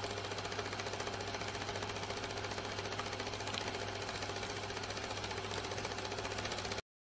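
Film projector running: a fast, even mechanical clatter of the film-advance mechanism over a steady low hum, cutting off suddenly near the end.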